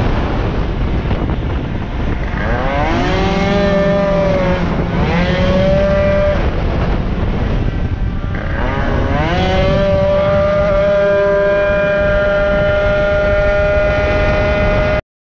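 Racing moped's engine heard from the bike itself with heavy wind rush: the revs climb three times, about two, five and eight and a half seconds in, then hold a steady high pitch. The sound cuts off suddenly near the end.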